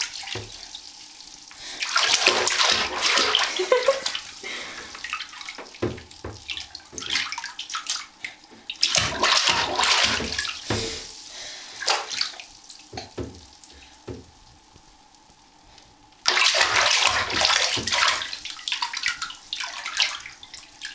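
A baby splashing bath water in a bathtub, in bursts of a few seconds with quieter stretches between.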